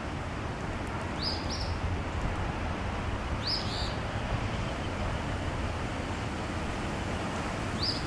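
Eastern phoebe singing its short two-part fee-bee song three times, a few seconds apart, over a steady low rumble of wind on the microphone.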